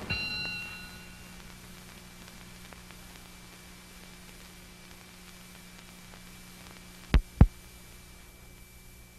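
The last note of the closing music rings and dies away within the first second. A steady low hum and hiss follow, broken about seven seconds in by two sharp clicks a quarter of a second apart.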